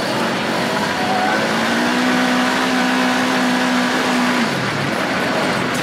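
Side-by-side buggy's engine under hard acceleration on a dirt track: the revs climb, hold steady for a couple of seconds, then drop about four and a half seconds in as the driver lifts off. A steady rush of wind and tyre noise runs underneath.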